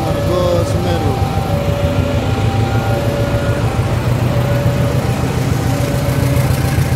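Two KAI CC206 diesel-electric locomotives running past at low speed with a steady low engine rumble. Over it, a two-tone electronic warning signal alternates between a higher and a lower note about every two-thirds of a second.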